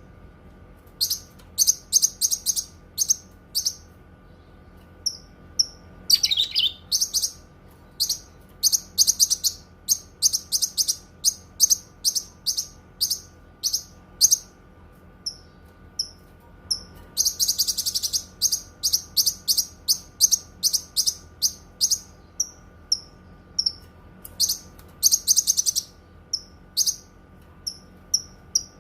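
Cucak kinoi songbird singing: quick runs of short, high, sharp chirps, with denser rapid flurries about six seconds in and again past the halfway point.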